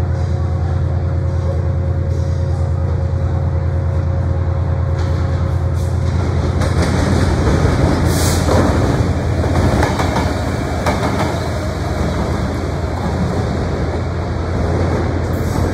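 Freightliner Class 66 diesel-electric locomotive running past, its two-stroke diesel engine giving a steady low throb. The rail noise grows louder as it draws near, about halfway through, with a brief hiss and some sharp clicks.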